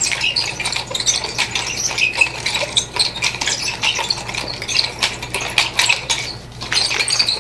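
Nunchaku spun in a continuous forward figure-eight, giving a rapid run of light clicks and rattles as it whips around the hand, over a steady low electrical hum.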